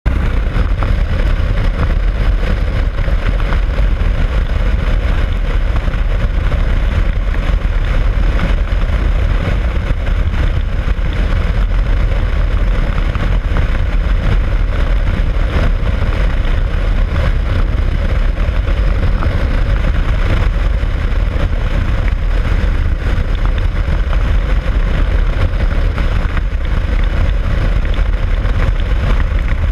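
Steady rush of wind over the microphone of a motorcycle-mounted camera at highway speed, mixed with the motorcycle's engine and tyre noise, with no let-up or change in pitch.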